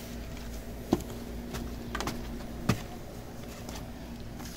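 A few short, light knocks and clicks, like things being handled, over a steady low hum.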